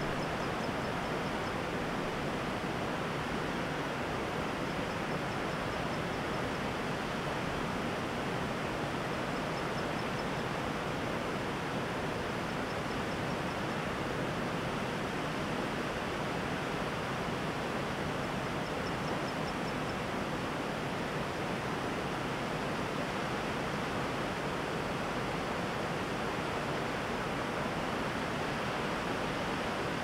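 Steady rush of a flooded river running over rock, with faint short high chirps now and then.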